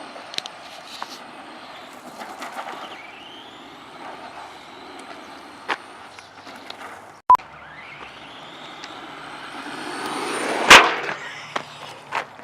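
RC truck driving, its motor whining up in pitch twice as it speeds off, over a steady rush of wheels on the ground, with scattered clicks. A loud bang comes near the end.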